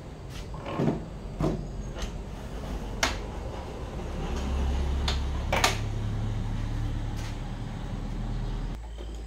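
Objects handled on a wooden workbench: a thump as a 12 V battery is set down, then sharp metallic clacks of alligator clamps on inverter cables, over a low steady rumble that stops near the end.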